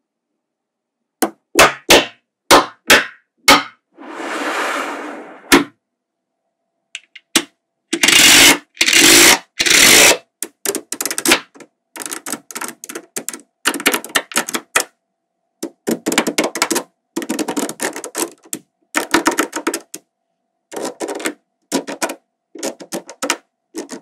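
Small magnetic balls clicking and snapping together as they are set in place, in irregular runs of sharp clicks, with a rattling slide lasting about a second and a half some four seconds in.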